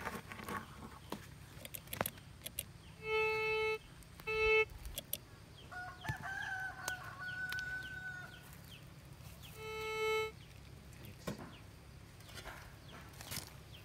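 A rooster crows once, about six seconds in, a call of two to three seconds that rises and then holds. Around it come three short honks of steady pitch, two close together about three seconds in and one about ten seconds in, with scattered light knocks.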